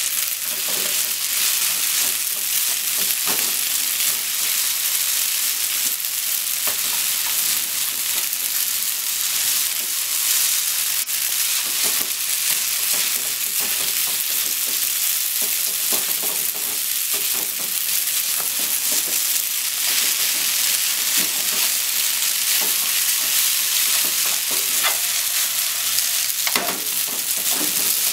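Spaghetti and sliced Japanese long onion sizzling in a hot frying pan while being stirred and tossed with long wooden cooking chopsticks, which tap and scrape against the pan now and then.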